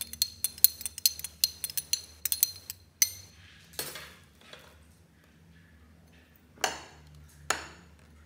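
Metal spoon stirring liquid in a small drinking glass, clinking rapidly against the glass for about three seconds. Then a few short splashes as the liquid is poured into a glass dish.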